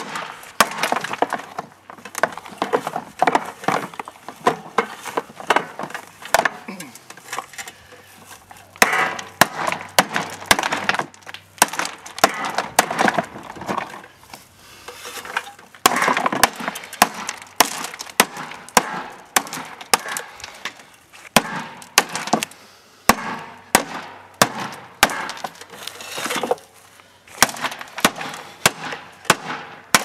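Hammer repeatedly striking a plastic washing-machine tub, about one or two blows a second in irregular runs. The plastic cracks and shards break off and clatter.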